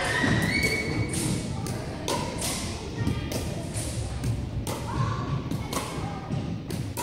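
Pickleball rally: sharp pops of paddles striking the plastic ball and the ball bouncing on a hardwood gym floor, a few a second at an uneven pace, ringing in the hall, with brief sneaker squeaks now and then.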